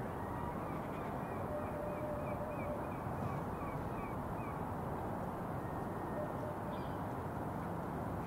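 Steady background hum of a town waterfront with a bird calling a quick run of short notes, about three a second, during the first half.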